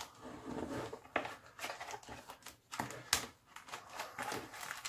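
Paper instruction leaflets rustling as they are pulled from the lid pocket of a plastic tool carrying case, with a few sharp clicks and knocks of the plastic case being handled.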